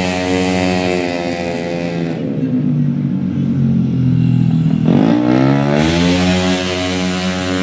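Tuned 130cc automatic racing scooter engine running hard: its pitch falls over the first couple of seconds, holds low, then rises sharply about five seconds in and eases down again.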